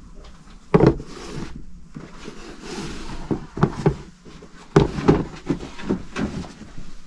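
Knocks, thumps and rustling of household items being handled and shifted around, with louder thumps about a second in and again near five seconds in.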